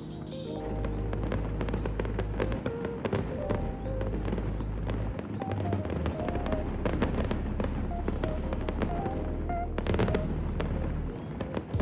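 Background music with a steady bass line, short melody notes and dense crackling percussion.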